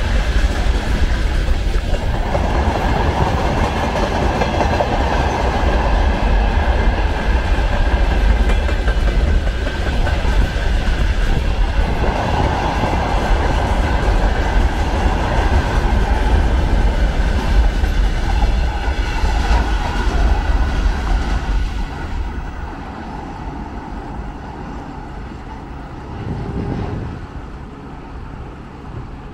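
Freight wagons rolling past at speed, wheels clattering over rail joints. About three-quarters of the way through, the end of the train goes by and the sound drops to a fainter, fading rumble.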